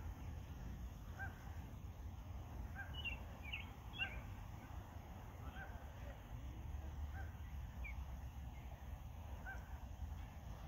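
Faint short calls from a family of Canada geese swimming with their goslings, soft honks coming about once a second, with a few higher peeps around the middle.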